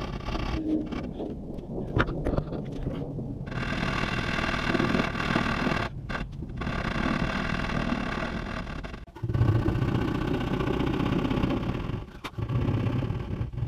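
A hand tool scraping along a white trim board in long strokes, with short breaks between them.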